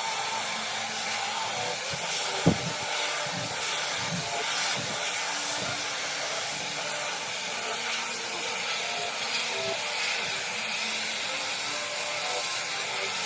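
Tideway high-speed hair dryer blowing steadily: an even, airy hiss. There is a single brief knock about two and a half seconds in.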